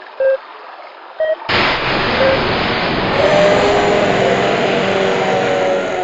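Railroad crossing warning bell dinging about once a second, alternating between two pitches. About one and a half seconds in, the loud rush of a passing train suddenly covers it, with tones that slowly sink in pitch.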